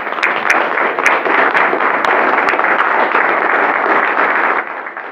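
A small audience applauding: loud, dense clapping that starts all at once and dies away after about four and a half seconds.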